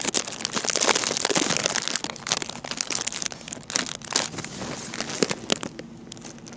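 Crinkling and crackling handling noise, with many small clicks in quick succession. It is loudest about a second in and dies down near the end.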